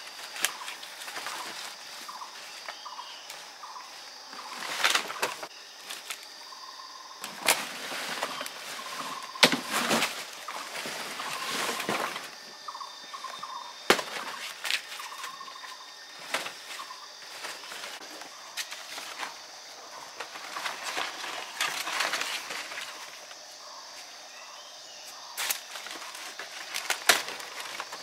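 Large fresh banana leaves rustling and crackling as they are handled and shifted, in irregular bursts, with some movement through dry leaf litter. A steady high insect buzz runs underneath.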